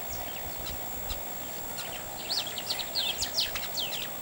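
African wild dogs twittering during their greeting ceremony: a quick run of high, sharply sliding chirps, about a dozen in a second and a half, starting a little past halfway, with a few fainter chirps before it.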